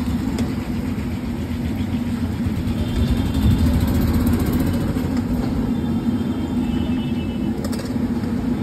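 An engine running steadily at idle: a low hum with one constant tone.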